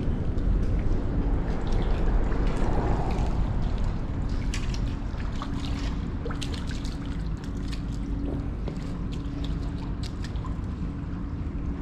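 Water trickling and splashing in small irregular drips, over a low rumble and a faint steady hum that breaks off now and then.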